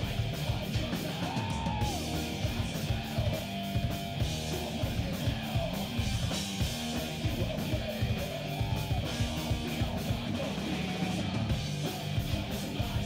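Heavy metal band playing live: distorted electric guitars and drums, with shouted vocals.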